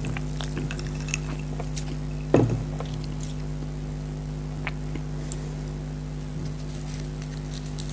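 A steady low hum with scattered light clicks and taps, and one louder thump about two and a half seconds in.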